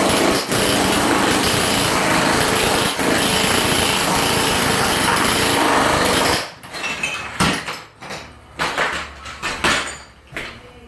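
Handheld tile vibrating tool buzzing steadily as it beds tiles and works out trapped air, switching off about six seconds in. After that come a few separate knocks and handling sounds.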